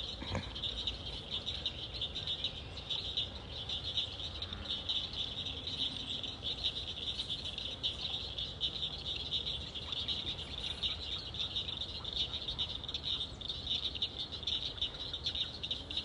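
A steady, high-pitched animal chorus of rapid pulsing trills, with no single call standing out.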